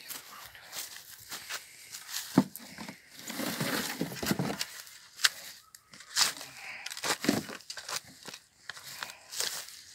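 A steel spade digging into grassy soil: the blade knocks and scrapes as it is driven in, and clods crunch and grass roots tear as the earth is levered over. The sharpest knock comes about two and a half seconds in.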